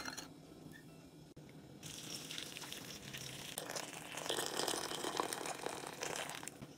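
Hot water poured from a kettle onto dried rice noodles in a steel bowl: a steady splashing pour that starts about two seconds in, grows louder midway and stops near the end.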